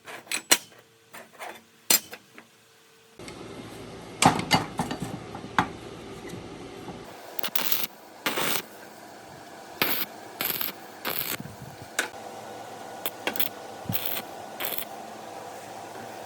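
Metal parts and hand tools being handled while a small car-washer machine is worked on: scattered sharp metallic clicks, clinks and knocks at irregular intervals, over a low steady background.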